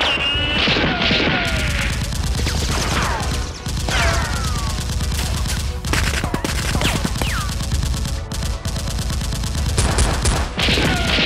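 Rapid gunfire sound effects: repeated bursts of shots, with several short falling whistles among them.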